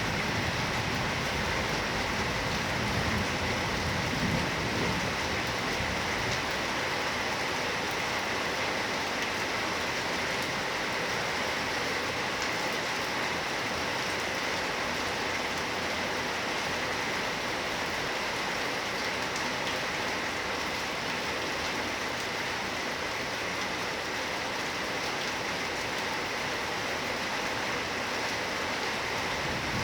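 Heavy rain pouring down steadily, a dense even hiss of drops hitting surfaces.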